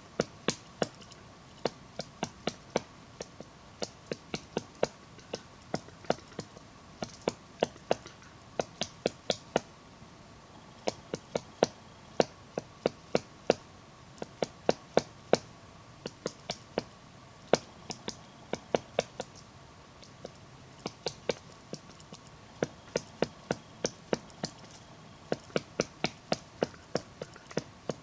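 Black woodpecker pecking at wood: single sharp knocks, two or three a second, in irregular runs broken by short pauses.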